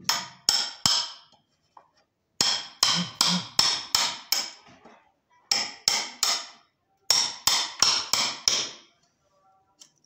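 Hammer blows on a tool working a hinge recess in a wooden door edge, each with a short ring, coming in quick runs of several strikes about three a second with short pauses between runs.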